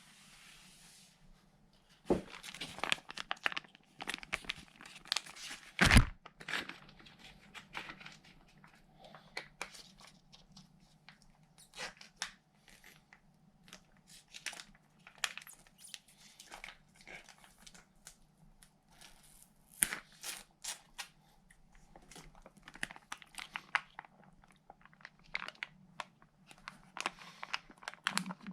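Plastic retort food pouch being handled and torn open: irregular crinkling, crackling and tearing with scattered clicks and knocks, the loudest a sharp knock about six seconds in. A faint steady low hum runs underneath.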